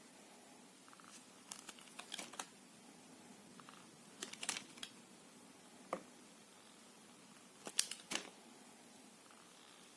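A knife cutting through soft soap, with short bursts of crisp crackling and clicking as the blade goes through, about four cuts spaced a couple of seconds apart.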